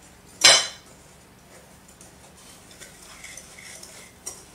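Wire whisk stirring sugar into browned butter in a glass bowl: one sharp clink about half a second in, then faint scraping and light ticks as the whisk works the mixture.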